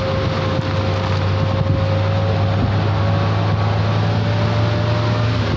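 A motor vehicle's engine running steadily, a low hum with a held tone that slides a little in pitch and cuts off near the end, mixed with wind noise on the microphone.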